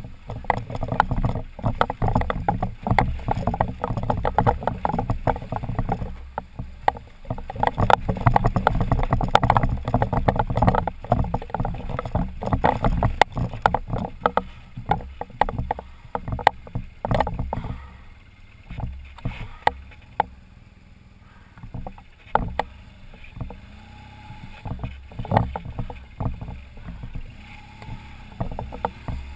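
BMW boxer-twin adventure motorcycle riding slowly over loose rocks: the engine runs at low revs under a constant irregular clatter of knocks and rattles from the tyres, suspension and bike hitting stones. The clatter eases for a few seconds past the middle, then picks up again.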